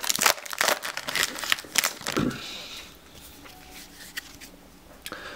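Foil Dragon Ball Z Panini booster pack wrapper being torn open and crinkled by hand, a dense run of crackles for about two seconds, then fainter handling.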